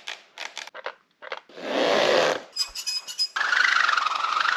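A quick run of Foley sound effects: a few short clicks and knocks, a swell of rustling noise, a brief crackle, then a long wavering creak that starts about three seconds in.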